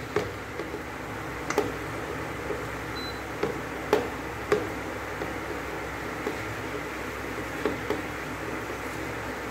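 Wooden spatula stirring grated bottle gourd in hot ghee in a pan, with a few light knocks and scrapes against the pan over a steady hiss.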